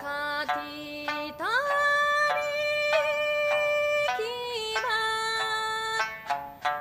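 A woman singing an Okinawan folk song in long held notes over a plucked sanshin. About a second and a half in her voice slides up into a high sustained note, which drops again near the middle.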